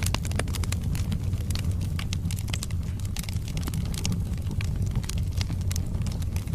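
Wood fire burning in a fireplace: dense, irregular crackling and popping of burning logs over a steady low rumble of the flames.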